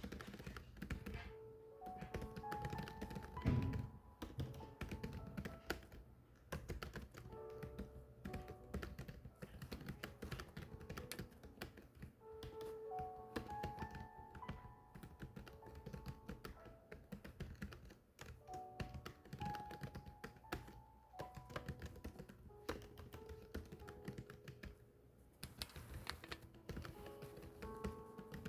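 Continuous rapid typing, a dense patter of key clicks, over soft background music with a slow melody. One louder thump stands out about three and a half seconds in.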